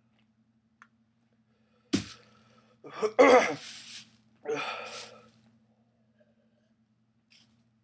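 A man coughing and hacking in three harsh bursts about a second apart, the middle one the loudest and partly voiced, from the burn of a superhot chili pepper at the back of his throat.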